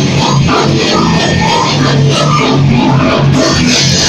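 A metal band playing live in a rehearsal room: heavily distorted electric guitar riffing on low notes over a drum kit, loud throughout.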